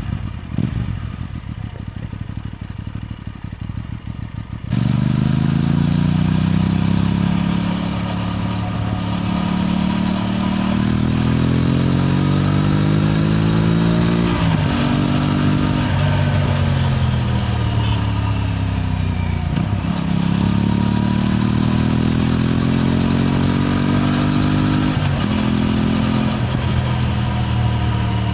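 Aprilia RS 457's parallel-twin engine and exhaust pulling hard under acceleration, the pitch climbing steadily through each gear and dropping sharply at the upshifts, three times in the second half. The first few seconds are quieter and duller before the engine note jumps up in loudness.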